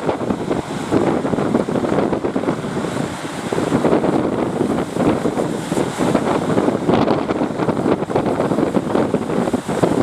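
Wind buffeting the microphone over the rush of surf at a river mouth, a loud, uneven noise with no clear engine tone.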